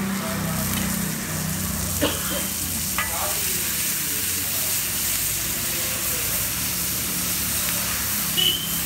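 Chopped onions, green chilli and tomato sizzling on a large flat iron griddle as a metal spatula stirs and spreads them, over a low steady hum. Short sharp metallic clinks come about two and three seconds in, and a brief ring near the end.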